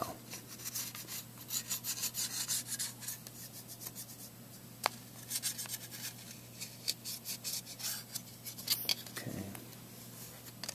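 Pointed end of a wooden stick scratching and rubbing along heavy-duty foil on a hard desk, tracing tight around raised lines to emboss them. It comes as runs of short, irregular scratchy strokes, with a short pause about halfway.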